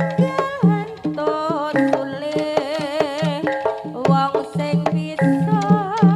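Live Javanese jaranan ensemble music: quick kendang hand-drum strokes under a wavering high melody line.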